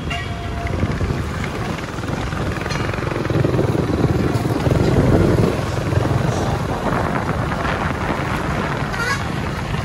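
Motorcycle running along a road, a steady low engine rumble that grows a little louder around the middle.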